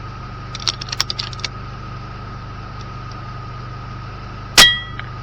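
A quick run of small metallic clicks about half a second in, then near the end a single sharp shot from a moderated RTI Arms P3 PCP air rifle, with a brief metallic ring after it. A steady hum runs underneath.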